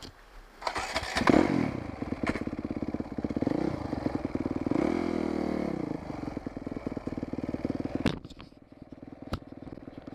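Dirt bike engine coming in loud about a second in and running with its revs rising and falling, then dropping back to a quieter, steady idle after about eight seconds.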